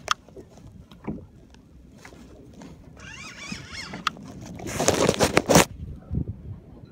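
Handling noise from a hand-held camera being rubbed and knocked about while the angler reels in a fish from a kayak. A few sharp clicks come early, a wavering high whine comes in the middle, and a burst of loud rubbing and knocking comes about five seconds in.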